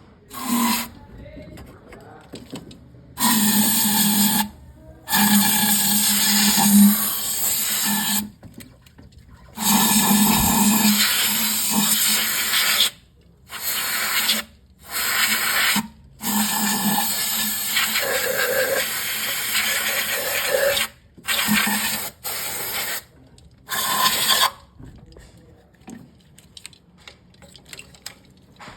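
Hissing spray in about nine repeated bursts of one to four seconds each, with a low hum under the hiss, stopping and starting: a cleaner being sprayed to clear carbon deposits from an engine's combustion chamber.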